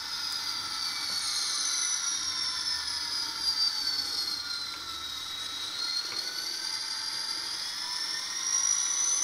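Model CSX diesel locomotive running on DCC-controlled track, giving a high whine that slides down in pitch and then back up.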